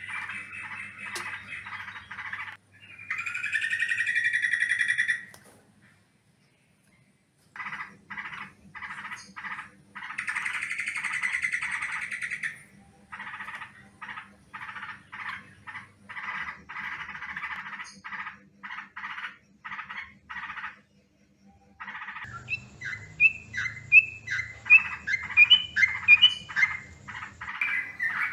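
Yellow-vented bulbul (trucukan) calling in fast runs of short, repeated chattering notes. The runs come in spliced blocks that start and stop abruptly, with two brief silences. Near the end a louder, more varied run of bubbling notes.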